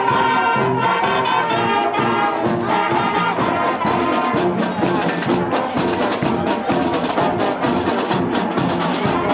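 School marching band playing a brass march tune: saxophones, trumpets and sousaphones over snare and bass drums, with a steady drum beat.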